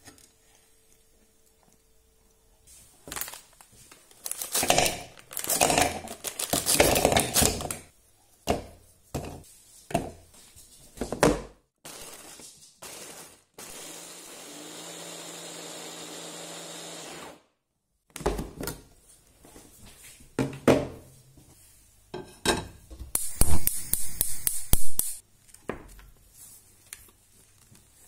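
Clattering and knocking of Oreo cookies and a plastic chopper bowl being handled. About halfway through, an electric food chopper runs steadily for about three seconds, grinding the cookies into crumbs, then cuts off suddenly. More rattling and knocking follow near the end.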